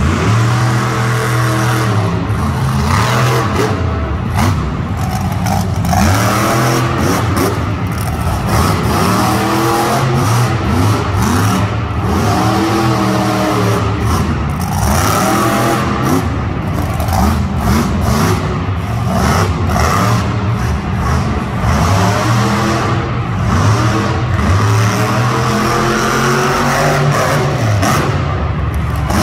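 Monster truck engine revving hard, its pitch climbing and falling again and again as the throttle is worked.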